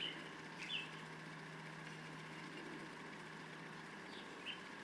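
Faint steady background hum, with a couple of brief faint high chirps about a second in and again near the end.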